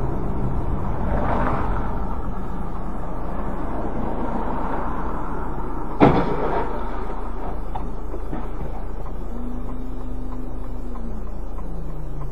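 Car driving, heard from inside the cabin on a dashcam: steady engine and road noise. A single sharp knock comes about halfway through. Later a steady engine tone holds, then drops in pitch near the end.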